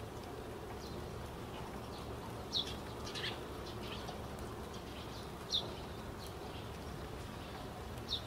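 Steady environmental background hiss, with four short, high chirps spread through it.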